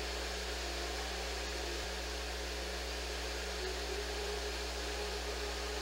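Steady room background noise: a low hum with an even hiss over it, unchanging throughout.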